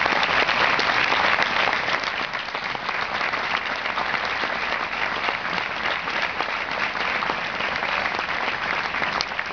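Large audience applauding, a dense patter of many hands clapping. It is loudest for the first couple of seconds, then eases slightly and holds steady.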